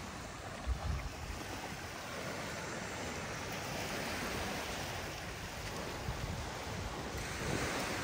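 Calm sea surf washing steadily onto a beach, with light wind on the microphone.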